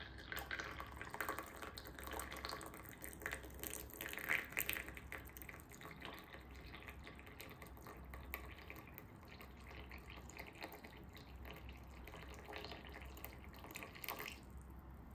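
Hot water poured in a thin stream from a gooseneck kettle into a ceramic teacup, falling onto a paper tea filter bag: a steady trickling splash that stops suddenly about a second before the end.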